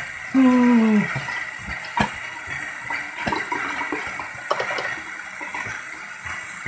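Water running in a bathroom, with scattered small clicks and knocks. A short, loud falling tone sounds about half a second in.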